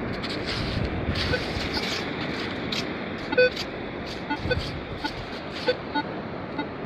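Metal detector giving a handful of short pitched beeps at uneven intervals, the loudest about halfway through, as its search coil is swept over a freshly dug hole in beach sand to recheck a target. A steady hiss runs beneath the beeps.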